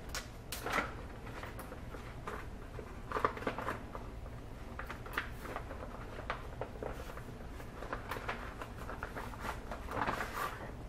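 Handling noise from a silicone placemat and its zippered carry bag being moved about on a desk: irregular light clicks, taps and rustles.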